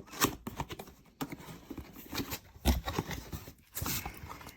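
A cardboard box and its packaging being handled and opened: rustling and scraping with sharp knocks, and a heavy thump nearly three seconds in.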